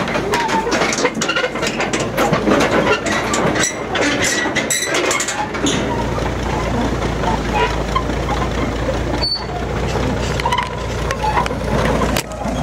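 Caterpillar D6 crawler dozer driving down off a trailer's ramps: steel tracks clanking with many sharp knocks over the first half, over its running diesel engine. In the second half the engine runs on more steadily.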